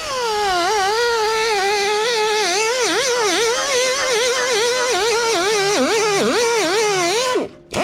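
Electric angle grinder, likely with a wire wheel, cleaning a steel plow moldboard: a high motor whine whose pitch keeps dipping sharply as the wheel bites into the metal and climbing back as it eases off. It cuts off near the end.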